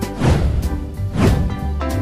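Background music with a steady beat: held notes over regular percussion hits.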